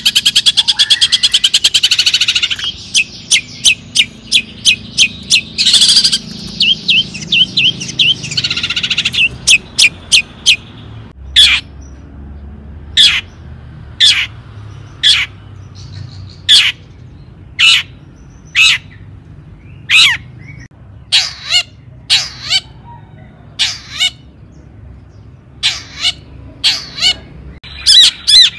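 Long-tailed shrike (cendet) singing: a fast chattering trill for the first couple of seconds, then quick runs of short notes, and from about eleven seconds in, single sharp calls about once a second.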